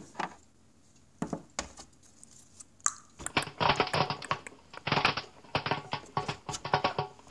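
Popcorn popping in a pot: a few scattered pops at first, then a rapid, crowded run of pops from about three seconds in.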